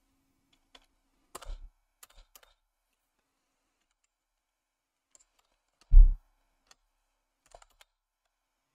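Computer keyboard being typed on in short scattered bursts of key clicks, with one much louder thump about six seconds in.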